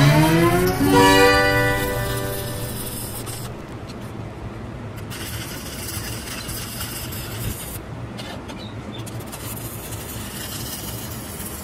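Guitar music fading out over the first two seconds, then the steady hiss of a stick-welding (SMAW) arc running a bead on a steel bracket. The high part of the hiss thins out briefly twice.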